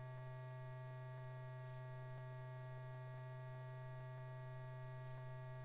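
Steady low electrical hum with a ladder of fainter, higher steady tones above it, typical of hum on an old film soundtrack; nothing else is heard.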